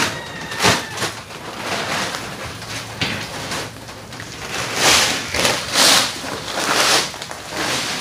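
Footsteps crunching on dry ground and grit, with a few heavier steps between about five and seven seconds in.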